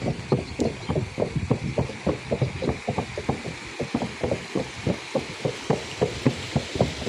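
A horse's hooves clopping on a bridge in an even run of sharp knocks, about four a second.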